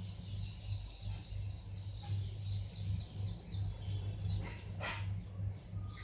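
Quiet background: a low steady hum with faint high chirping, and two short sharp sounds about half a second apart, roughly four and a half seconds in.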